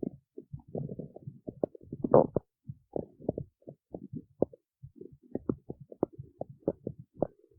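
Human stomach growling: an irregular run of short gurgles and pops, with a longer, louder rumble about two seconds in.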